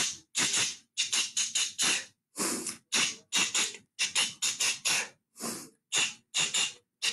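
A woman making quick, rhythmic hissing breath sounds through her mouth, about three short bursts a second, imitating a toothbrush scrubbing the teeth.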